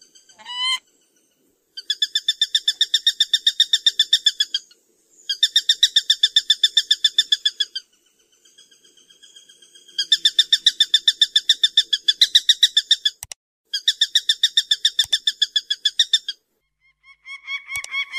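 Peregrine falcon giving its harsh, rapidly repeated kak-kak-kak call, about nine notes a second, in several bouts of two to three seconds with short breaks. About a second before the end a different, lower-pitched repeated call starts.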